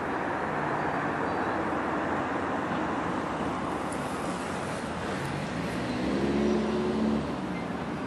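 Steady din of heavy diesel machinery as a Komatsu PC300 excavator works a pile of broken concrete. An engine note rises and grows louder about five seconds in, then cuts back about two seconds later.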